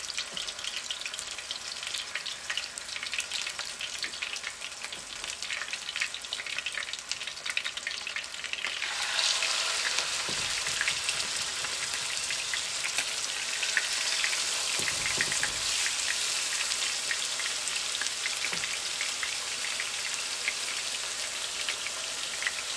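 Seasoned chicken breasts sizzling and crackling in hot olive oil in a skillet. The sizzle gets clearly louder about nine seconds in, as another raw piece goes into the pan.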